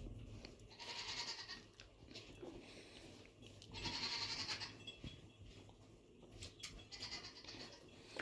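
Goats bleating: three high, screeching calls about three seconds apart.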